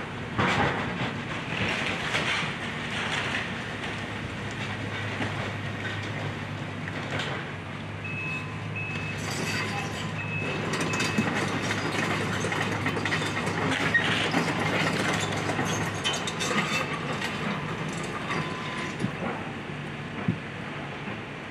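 Excavator tearing down a house: its diesel engine runs steadily under irregular crunching, clattering and knocking of breaking debris. A short run of high beeps sounds around the middle.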